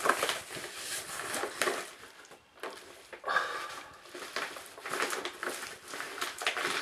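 A brown paper mailer bag and the plastic wrapping inside it rustling and crinkling in irregular handfuls as a box is worked out of it by hand. The rustling goes quiet briefly about two and a half seconds in, then resumes.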